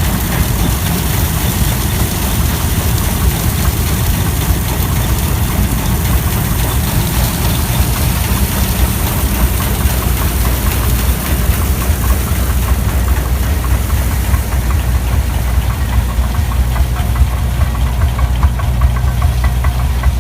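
Old internal-combustion engine running slowly and steadily, with a regular firing beat that stands out more clearly in the second half.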